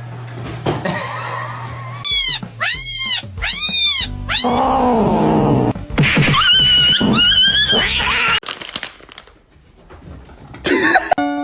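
Cat meowing: three short rising-and-falling meows, then a lower call and a longer drawn-out yowl. Music comes in near the end.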